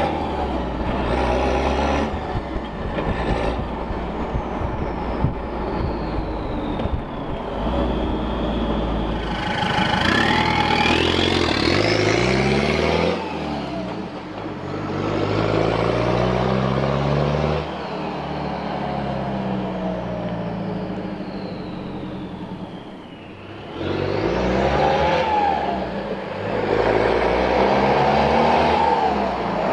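Toyota Hilux Surf's turbo-diesel engine pulling through the gears, revs climbing and dropping several times, heard from inside the cab. A turbo whistle rises as it spools up under throttle and slides down as the throttle lifts.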